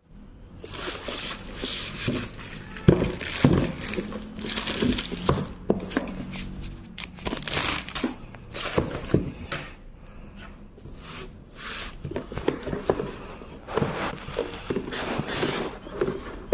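Plastic courier mailer bag crinkling and rustling as it is handled and opened, in an irregular run of crackling bursts with a few sharp knocks.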